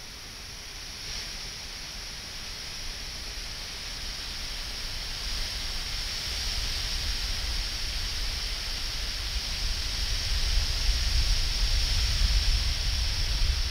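Steady hiss that slowly grows louder, with a low rumble building beneath it: air let out through the pinched neck of an inflated latex balloon.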